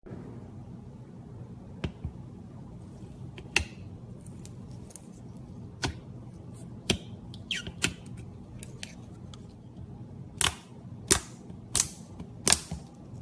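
Slime being pressed and played with by hand, giving a series of sharp pops and clicks, with several close together near the end, over a steady low hum.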